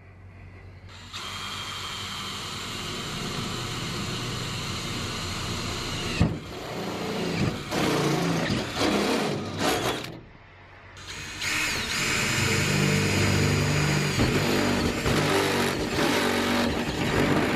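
Cordless drill with a step drill bit boring pilot holes through a van's sheet-metal roof. The motor whines steadily while the bit grinds through the steel. After a pause of about a second, near the middle, the drill runs again for the second hole.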